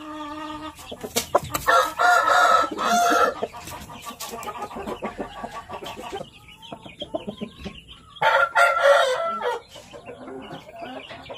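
Rooster crowing twice, each crow a long call of about a second and a half, the second about six seconds after the first. Softer clucks come between the crows.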